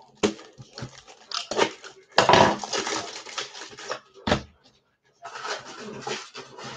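Foil trading-card pack wrappers being torn open and crinkled by hand, in irregular bursts of rustling and crackling with a sharp click about four seconds in.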